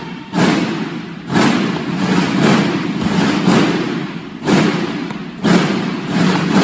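Drums of a Mexican banda de guerra beating a steady march cadence, one loud hit about once a second with a rattling wash between, echoing in a large hall.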